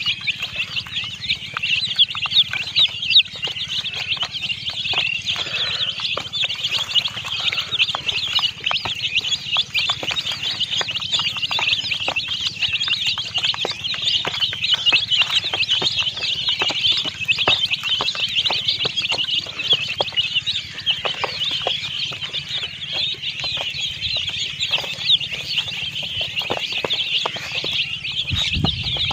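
A flock of baby chicks peeping nonstop in a dense, high-pitched chorus, with many light clicks scattered through it.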